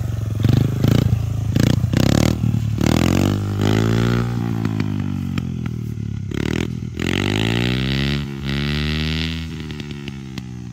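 Small kids' dirt bike engine revving up and easing off repeatedly as it pulls away, its pitch rising and falling, with a few short loud bursts of noise in the first seconds. It grows fainter near the end as the bike rides off.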